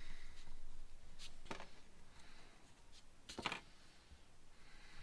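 A few light clicks and clinks of small metal parts being handled as the slotted-head screws and retaining ring come off a carburetor's choke cap and are set down on cardboard, the loudest a quick double clink about three and a half seconds in.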